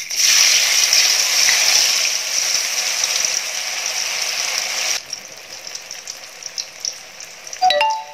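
Masala-coated potato pieces hitting hot oil in a deep-frying kadai: a loud sizzle that starts all at once, then about five seconds in settles to a quieter, steady sizzle with small crackles. A brief ringing knock near the end.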